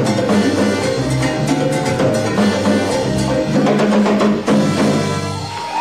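Live salsa band playing: a brass section over a walking bass line and Latin percussion keeping a steady knocking rhythm.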